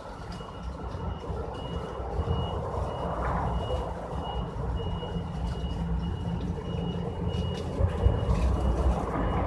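A high electronic beep repeating steadily, like a vehicle's warning beeper, over a low rumble.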